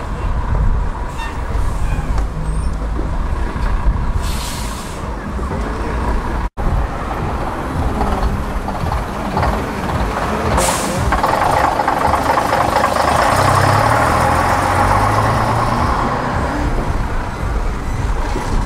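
Bus diesel engines running at a stop, with short air-brake hisses about four and a half and about ten and a half seconds in. After the second hiss a vintage Leyland half-cab double-decker's diesel engine pulls away, its note rising and growing louder for a few seconds before easing as it moves off.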